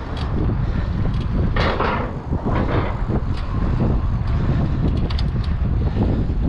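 Wind buffeting a GoPro's microphone on a moving bicycle, a steady low rumble, with light rattling clicks from the bike and its front rack over the paved path. Two louder rushes of wind come about two and two-and-a-half seconds in.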